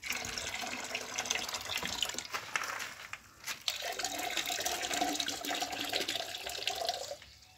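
Boiled water poured from an electric kettle into a plastic basin already holding water: a steady splashing stream that dips briefly a little past three seconds, then runs on with a steady tone before stopping just before the end.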